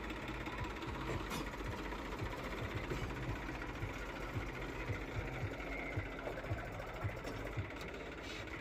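Diesel tractor engine running, with irregular low thuds.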